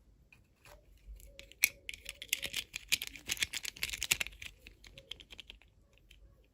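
Toy packaging and small plastic pieces being handled: a dense run of quick clicks and crinkles that builds up about a second in, is loudest in the middle, and dies away near the end.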